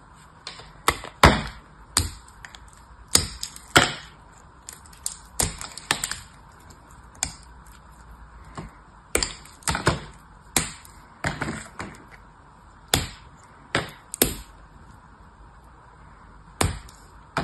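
A gold-coated piece of hard soap snapped and crumbled between the fingers: an irregular string of sharp, crunchy cracks, one or two a second.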